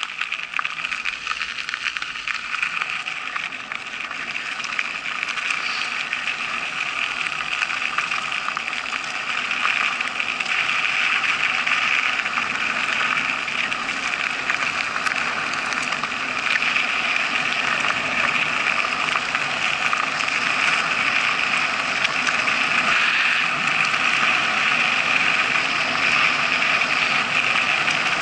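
Mountain bike rolling fast down a gravel forest road, heard through the action camera's case: a steady rush of tyre noise on gravel and rattling vibration that grows louder as the bike picks up speed.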